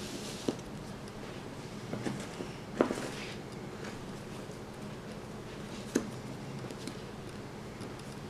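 A few light knocks and taps of cardboard jigsaw pieces against the puzzle board and wooden floor, the loudest about three seconds in, over a steady low hum.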